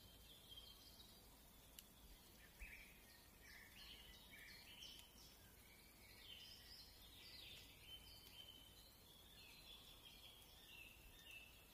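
Faint birdsong in woodland: many short, high chirps and whistled notes, some sliding down in pitch, following one another in quick runs over a quiet background hiss.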